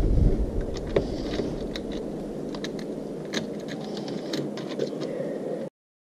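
Small scattered clicks and rattles of wire terminals and fittings being handled on the posts of a deep-cycle battery, over a steady low background hiss. The sound cuts off suddenly near the end.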